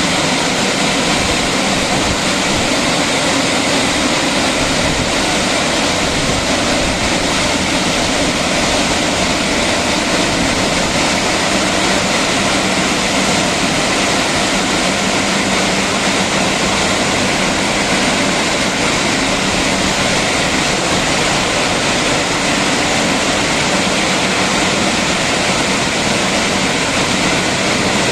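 Ambulance disinfecting and washing machine spraying, a steady rushing hiss of water or disinfectant spray with a low machine hum underneath.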